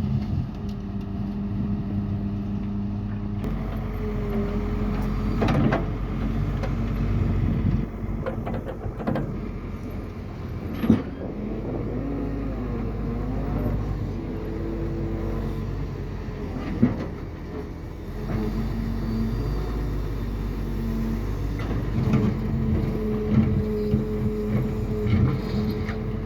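Doosan DX140 hydraulic excavator's diesel engine running steadily under load, with a higher hydraulic tone that rises and falls as the machine works. A few sharp knocks stand out, the loudest near the middle and about two-thirds of the way through.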